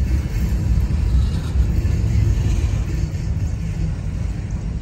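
Tail end of a freight train rolling past on the rails, its last covered hopper car's wheels making a steady low rumble.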